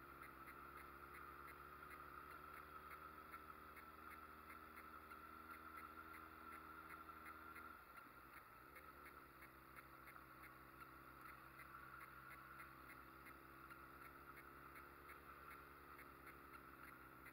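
Street motorcycle engine running, heard faintly, with a steady note. About eight seconds in the note breaks off and comes back at a different pitch, as the throttle or gear changes.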